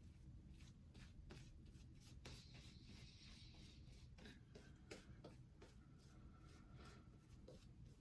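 Faint, quick scratching strokes of a Wilkinson Sword double-edge safety razor cutting lathered stubble, a few strokes a second.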